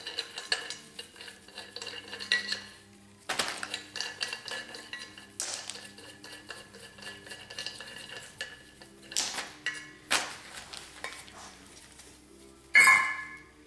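Clanks and clinks of a cast-iron cross-drilled Mercedes-Benz brake rotor and wheel hub being handled and turned over. There is a handful of sharp metallic knocks, each with a brief ringing, and the loudest come about five seconds in and near the end.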